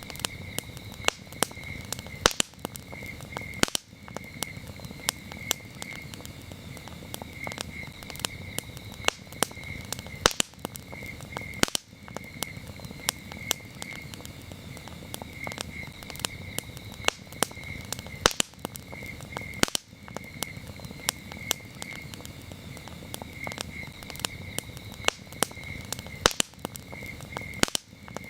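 Campfire crackling, with frequent sharp irregular pops over a low steady rush, while crickets chirp in a high, evenly pulsing trill.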